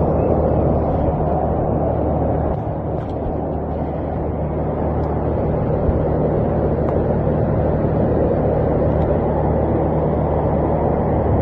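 Floodwater rushing, a steady loud roar of water with a low steady hum beneath it.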